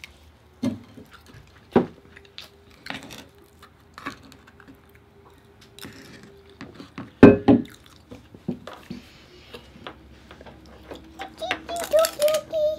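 Close-up eating sounds: scattered wet clicks and lip smacks from chewing crab meat, with one loud knock about seven seconds in. A child's voice hums briefly near the end.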